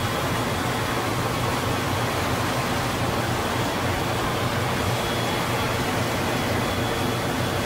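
Steady rush of wind and water with a low engine hum underneath, as heard from a boat out on the sea.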